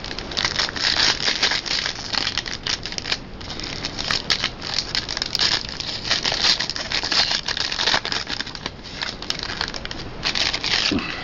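The wrapper of a trading-card pack being torn open and crinkled in the hands, in irregular bursts of crackly rustling with two short pauses.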